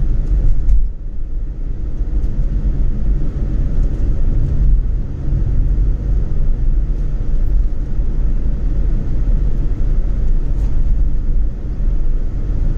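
Road and engine noise heard inside a moving car: a steady low rumble.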